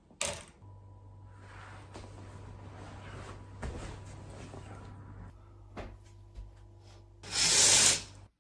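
Faint rustling and handling noises over a low steady hum, with a sharp click at the start. Near the end comes a loud swish about a second long, as a window curtain is pulled aside.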